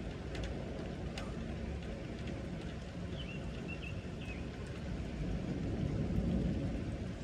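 Steady rain falling during a thunderstorm, with a low rumble of distant thunder swelling and easing near the end. A few faint, short, high chirps come about three seconds in.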